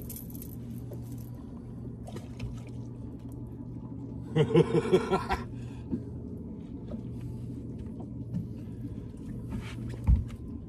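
Water sloshing over a steady low hum aboard a fishing boat. About four seconds in there is a loud burst lasting about a second, and near the end a single thump.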